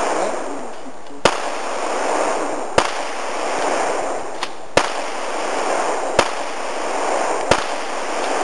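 Pistol shots fired one at a time, five in a row, about one and a half to two seconds apart, over a steady hiss.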